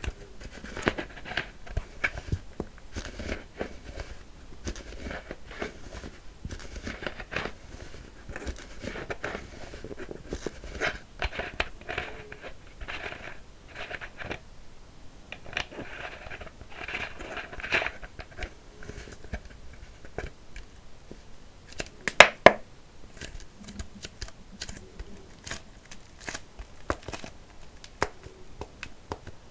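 Empty plastic kvass bottle being squeezed and handled close up: a steady run of irregular crinkles, crunches and clicks, with two loud sharp clicks a little past two-thirds of the way in.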